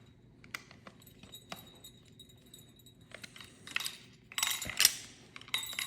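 A small Phillips screwdriver tightening self-tapping screws into a battery box mounting bracket: faint scattered clicks, then busier scraping and clinking about three seconds in, with one sharp click near the end.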